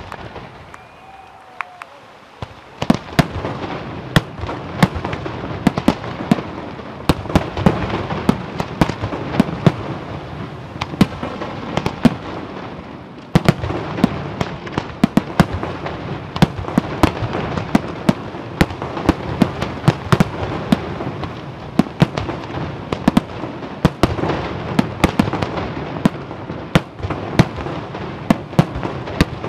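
Aerial fireworks display by Scarsella Fireworks: after a few scattered pops, shells start bursting in a dense barrage a couple of seconds in. Many sharp bangs a second ride over a continuous rumble, with a brief lull about halfway through.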